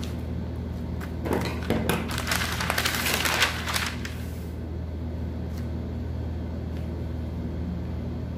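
Pencil and wooden L-square scraping and rustling over brown pattern paper, from about a second in until about four seconds in, over a steady low hum.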